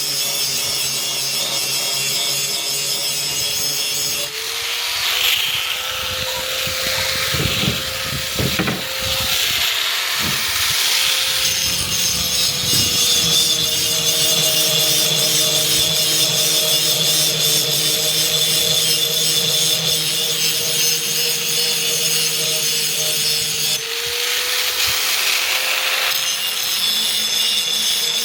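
Power grinder sharpening a steel axe edge: a steady motor tone under a bright, rasping hiss of metal on the abrasive. The motor's pitch shifts slightly a few times as the work goes on.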